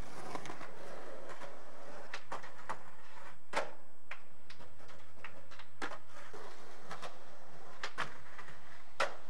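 Skateboard wheels rolling on concrete, with several sharp wooden clacks of the board (pops and landings) and a grind along the bench ledge about eight seconds in.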